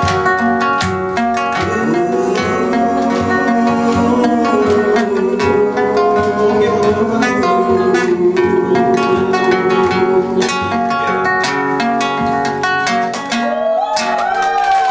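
Three acoustic guitars playing a song together, strummed chords under picked melody notes.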